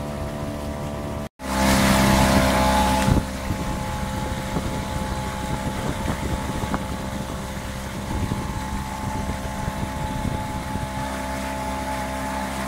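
Tohatsu 3.5 outboard motor running steadily at mid-to-high revs during break-in, with wind and water noise. About a second in the sound cuts out briefly, and a louder rush of wind noise follows for about two seconds before the engine settles back.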